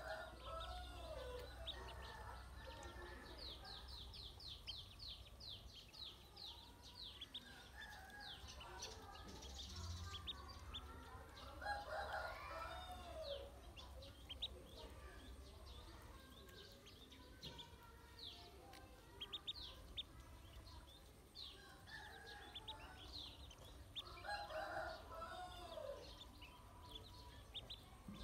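Ducklings peeping in quick runs of short, high notes, with a rooster crowing three times, roughly evenly spaced; the crows are the loudest sounds.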